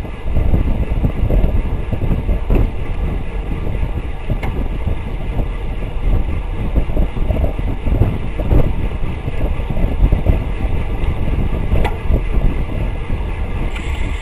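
Wind buffeting the microphone of a bicycle-mounted camera at racing speed, about 25 to 29 mph, over the rumble of road-bike tyres on the pavement, with a few faint clicks. Near the end, as the rider stops pedalling to coast, a steadier higher buzz comes in: the rear hub freewheeling.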